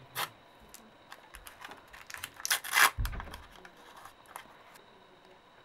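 Small paper packet sealed in clear sticky tape being torn and peeled open by hand: a run of crinkling rustles and crackles, the loudest tear about two and a half to three seconds in, dying away near the end.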